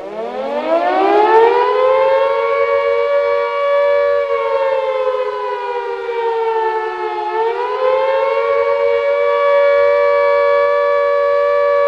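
A siren winding up from a low pitch to a steady wail, two close pitches sounding together. Its pitch sags slowly from about four seconds in, climbs back near eight seconds, then holds.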